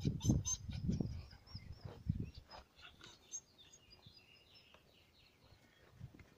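Small birds chirping faintly, with bursts of low rumble over the first couple of seconds.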